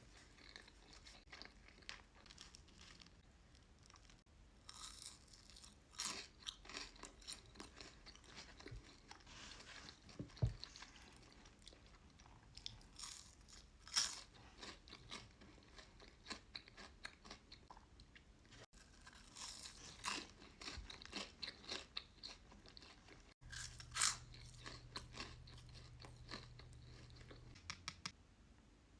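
Close-miked chewing and crunching of fast food: irregular wet mouth sounds with scattered louder crunches.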